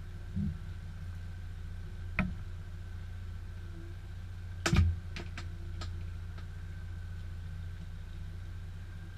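Boat motor running at a steady low idle, with a few sharp knocks and clicks, the loudest cluster just under five seconds in.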